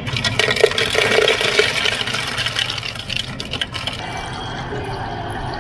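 Ice cubes clattering rapidly into a stainless steel insulated mug from a soda fountain's ice chute. About four seconds in, this gives way to a steady rush of water from the fountain's water tap running over the ice.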